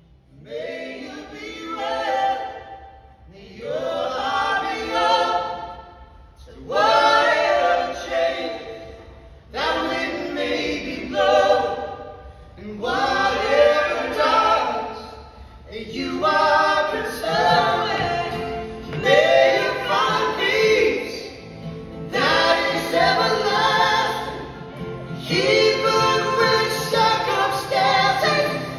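Live male and female voices singing together in harmony over an acoustic guitar, in a series of sustained phrases of two to three seconds each with short breaths between them.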